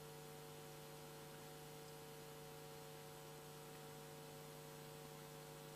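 Near silence with a faint, steady mains hum.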